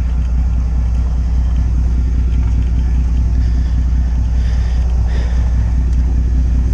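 A sportfishing boat's engine running with a steady, even low drone.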